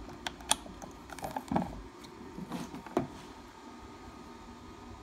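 A Bosch laser level being handled and switched on at a table: a handful of light plastic clicks and knocks.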